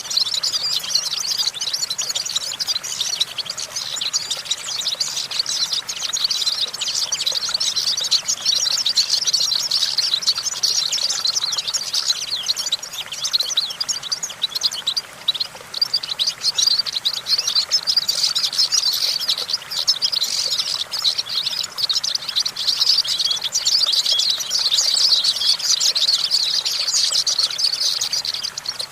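European goldfinch singing: a fast, unbroken stream of high twittering notes, with a brief let-up about halfway through.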